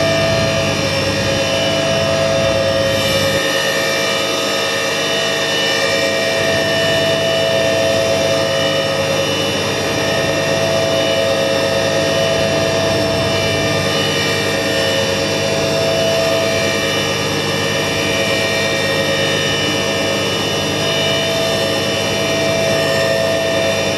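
Bosch Maxx 4 WFC 1200 front-loading washing machine in its spin cycle, with the drum held at top spin speed. The motor and drum give a loud, steady whine made of several steady tones, and the low rumble beneath it weakens about three seconds in.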